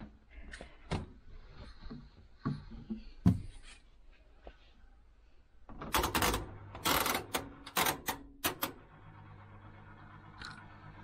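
Laundry being stuffed by hand into a front-loading tumble dryer's drum: fabric rustling with light clicks and knocks, loudest in a flurry of rustles and bumps a little past the middle. A low steady hum comes in near the end.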